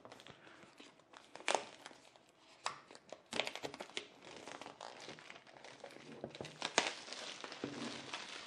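Retail box packaging of an eero mesh WiFi system being opened and unpacked by hand: irregular crinkling and some tearing, with sharp clicks scattered through it and the loudest snap a little before seven seconds in.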